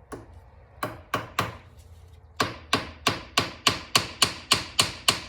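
Hammer tapping a hand impact driver to shock loose the stubborn slotted screws of a motorcycle clutch centre: sharp metallic blows, three quick ones about a second in, then a steady run of about ten at roughly three a second.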